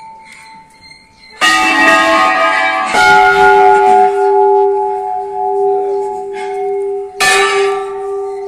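Hanging brass temple bells struck three times, about one and a half, three and seven seconds in. Each strike rings on and overlaps the last, and the bells sound at different pitches.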